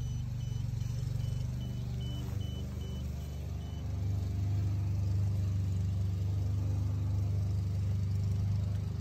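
AL-KO Robolinho robotic lawnmower starting up after its boundary-loop signal has been restored: a run of short high warning beeps, about three a second, then about four seconds in a steady low motor hum comes up louder as the blade motor starts.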